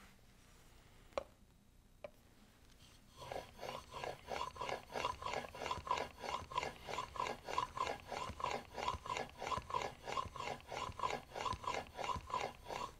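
Steel plane blade in a honing guide rubbed back and forth on a wet 8000-grit waterstone, honing the bevel to raise a burr. A couple of light clicks as it is set on the stone, then from about three seconds in a steady rhythmic rasp of about three strokes a second.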